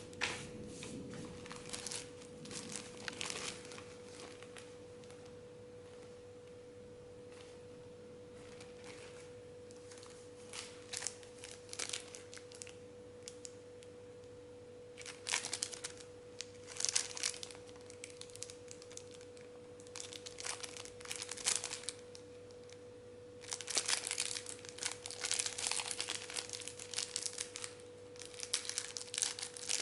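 Plastic packaging of a trading-card starter pack crinkling and tearing in irregular bursts as it is handled and opened. A steady faint tone hums underneath throughout.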